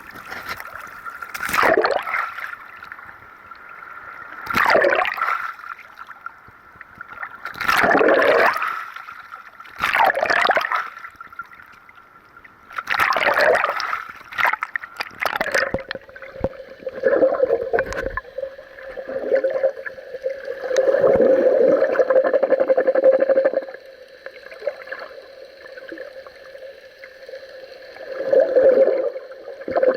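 Sea water sloshing and gurgling around an action camera in its waterproof housing. It comes in rushing surges about every three seconds as waves wash over it, then about sixteen seconds in turns into a steadier, muffled bubbling.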